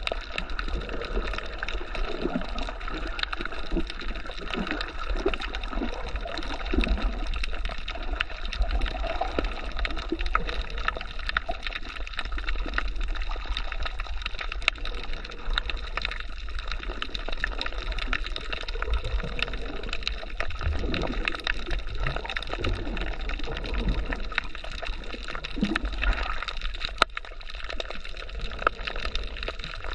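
Underwater sound picked up by a camera submerged while snorkeling: muffled water movement and gurgling, with a steady scatter of fine crackling clicks.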